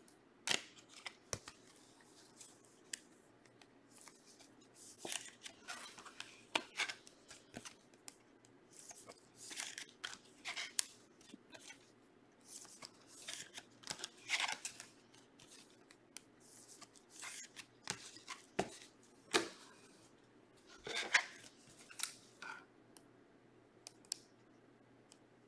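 Trading-card packs being opened and handled: short, irregular bursts of crinkling, tearing and rustling of the foil wrappers and cards, one every second or so, the loudest about 14, 19 and 21 seconds in.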